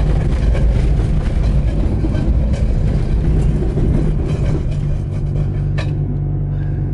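Car rolling on bare wheel rims with no tyres, heard from inside the cabin: a loud, rattling metal-on-pavement rumble with the engine beneath it. About two-thirds in it settles into a steadier low hum.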